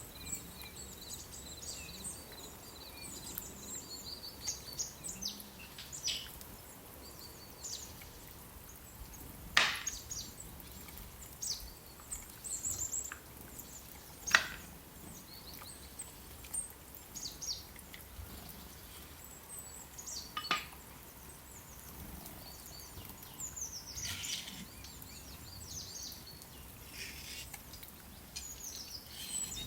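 Small birds chirping and twittering over a faint steady hiss, with a few sharp knocks or taps, the loudest about a third and halfway through.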